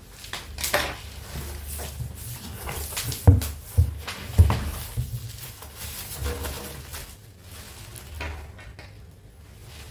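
Handling noises while unpacking a boxed mini refrigerator: a run of irregular knocks and thumps with light rustling, the loudest knocks a little over three and four seconds in.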